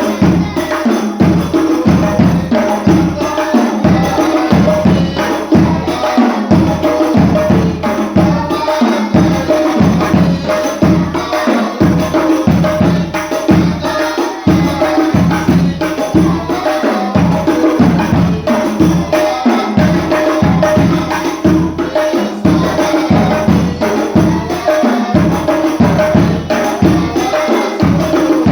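Hadroh ensemble of rebana frame drums playing a steady, driving rhythm, with deep bass strokes under the higher jingling and slapping hand drums.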